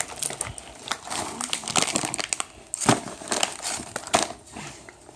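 Plastic snack wrapper crinkling and being crumpled by hand in irregular crackly bursts.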